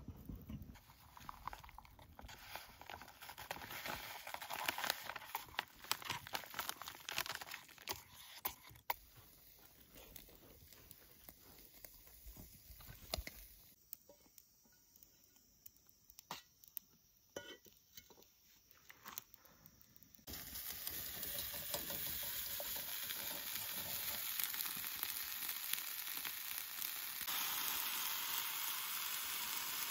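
Steaks cooking over a campfire: crackling and popping, then a steady sizzle that starts abruptly about two-thirds of the way in.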